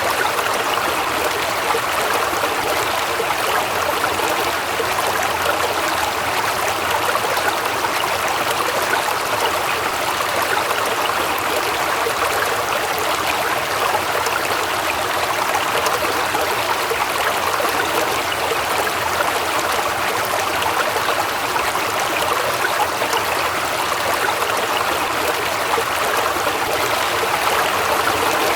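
Waterfall: a steady rush of falling and splashing water, even and unbroken.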